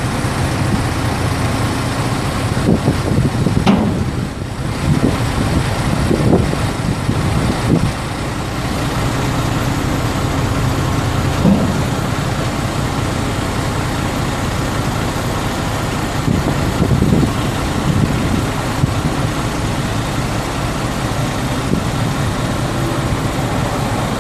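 A 2006 GMC C8500 dump truck's 7.8-litre inline-six diesel idles steadily while the hydraulic hoist lowers the raised steel dump bed.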